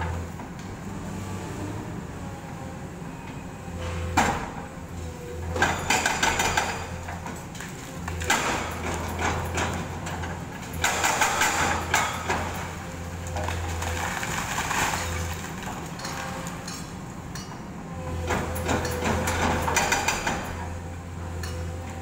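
Excavator's diesel engine running steadily under repeated bursts of crashing and clattering as its arm breaks into a concrete building and debris falls.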